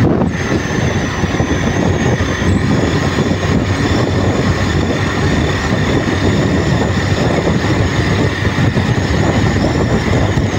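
A motorcycle riding at speed, heard from the rider's seat: a steady rush of wind on the microphone and road noise, with the engine's drone and a thin steady high whine over it.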